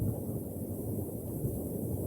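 Strong winter wind blowing in gusts, a steady low rumbling noise with the wind buffeting the microphone.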